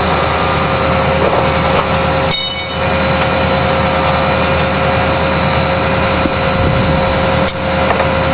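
A motor runs steadily with a constant whine, with a brief high squeak about two and a half seconds in.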